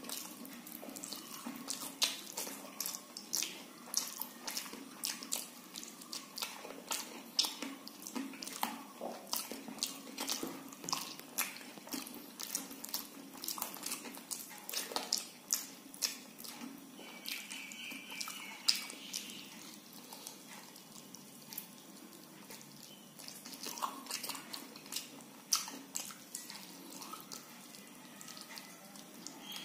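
Close-up wet eating sounds of a person eating soft khichdi by hand: fingers squishing and scooping the sticky rice and lentils, and lips smacking while chewing, heard as a steady run of small wet clicks.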